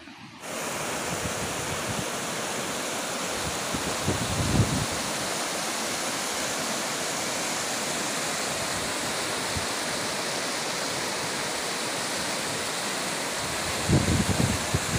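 Swollen river rushing over rapids: a steady, loud wash of water noise that cuts in suddenly about half a second in. Low gusts of wind buffet the microphone around four seconds in and again near the end.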